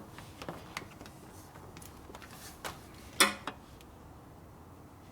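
Light clicks and taps of hand tools and metal parts being handled, with one louder metallic clank about three seconds in.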